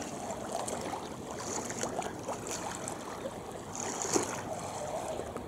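Steady rush of water and wind on a rowing course, with a few brief splashy hisses as the oar blades of a racing coxed four strike and leave the water.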